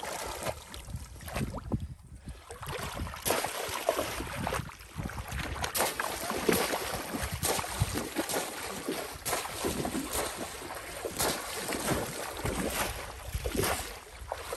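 Shallow pond water splashing and sloshing as bamboo polo fish traps are jabbed down into it again and again, with the sloshing of legs wading through the water. The splashes come irregularly, about one a second.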